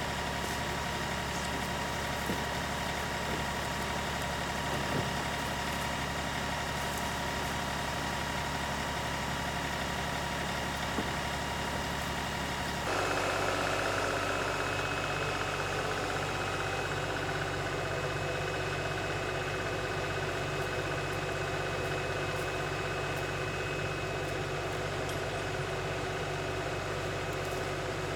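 LS XR3135 compact tractor's diesel engine running steadily. About halfway through its note changes abruptly and briefly gets slightly louder.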